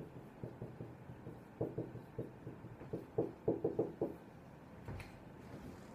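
Whiteboard marker writing on a whiteboard: a quick run of short taps and strokes, densest in the middle, with one sharper click about five seconds in.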